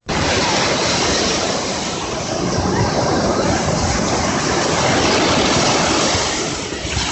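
Steady rush of sea waves and surf, loud and even throughout, easing a little near the end.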